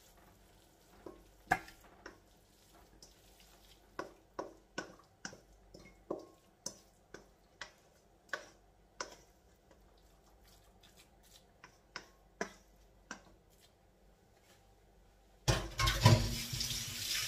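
Wooden spatula knocking and scraping against a stainless steel mixing bowl as a minced meat and cabbage mixture is scooped out into a glass baking dish: a string of short, irregular knocks and scrapes. Near the end, a loud rustling scuffle lasting about two seconds.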